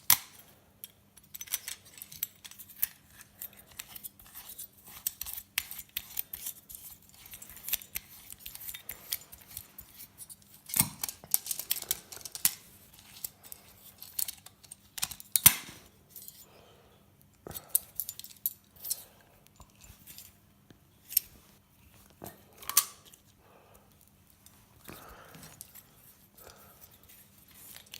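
Small metal parts of an old light fitting clinking and tools clicking and snipping as it is taken apart by hand: irregular sharp clicks and clinks with quieter gaps, the loudest about 11 and 15 seconds in, over a faint steady hum.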